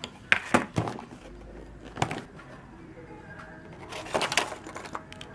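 Clear plastic blister packaging being handled and set down on a wooden table: sharp plastic clicks and knocks, a few in the first second, one about two seconds in, and a quick cluster about four seconds in.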